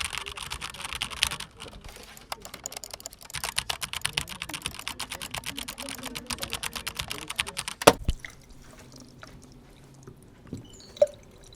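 Fast, irregular clicking like typing on a keyboard, in two long runs, with one louder sharp knock about eight seconds in, then only a few faint scattered sounds.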